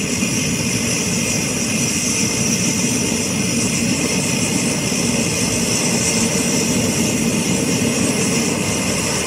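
Pressurised liquid-fuel camp stove burner running at full flame, a steady hiss as the hot generator loop vaporises the fuel and the burner comes up to full pressure.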